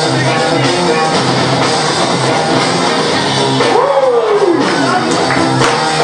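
Loud music with a steady beat, played for the dancers over the hall's sound system. About four seconds in, a sliding tone rises and then falls in pitch.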